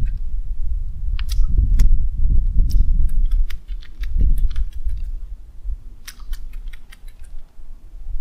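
Baitcasting reel cranked in short spells while a lure is worked back, giving clusters of light, irregular clicks over a steady low rumble.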